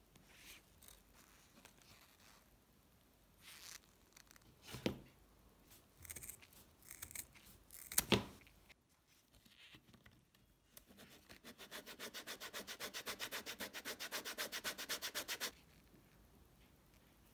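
Small handling clicks and taps, then sharp snips of scissors cutting through leather, the loudest about eight seconds in. In the second half comes a fast, even rub of about eight strokes a second, lasting about five seconds.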